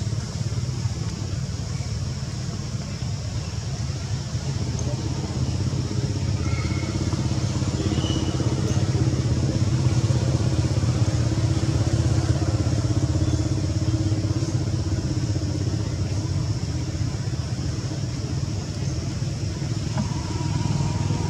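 A steady low rumble with a faint hum, growing louder around the middle and again near the end.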